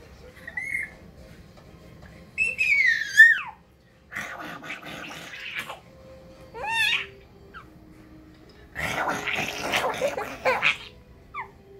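A baby laughing and squealing in several bursts. There are high, gliding squeals that fall in pitch, and spells of breathy laughter, the longest near the end.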